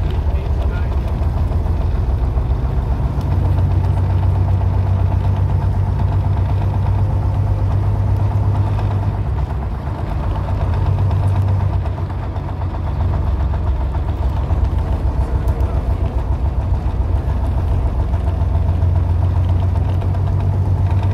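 Vintage bus engine running as the bus drives along, a loud, low, steady drone with brief dips in level about ten and twelve seconds in.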